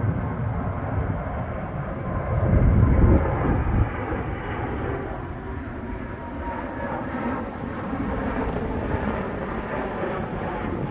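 Airbus A330neo airliner's Rolls-Royce Trent 7000 jet engines rumbling, with a louder low surge between about two and four seconds in.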